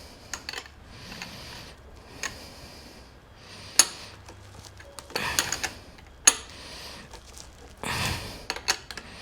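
Metal parts and a 17 mm hand tool knocking and clicking as a motorcycle headlight and its steel mounting bracket are fitted and the bolt is set. There are scattered sharp clicks, the loudest about four and six seconds in, and two short scraping stretches.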